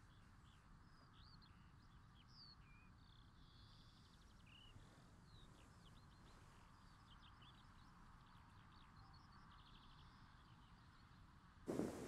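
Faint birdsong: many short chirps and whistles from several birds over a quiet hiss. Near the end a sudden, much louder rushing noise comes in, like wind.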